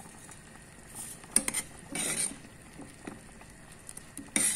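Metal ladle stirring vermicelli and sago in a boiling stainless steel pot, clinking and scraping against the pot a few times, loudest near the end.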